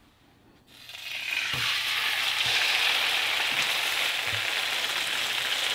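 Wild salmon fillet sizzling in hot oil in a nonstick frying pan: the sizzle starts about a second in as the fish goes into the pan, builds quickly and then holds steady, with a few soft knocks of the spatula.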